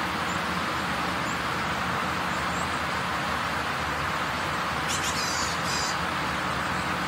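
Steady, noisy background din of a fish market, with a brief scrape about five seconds in.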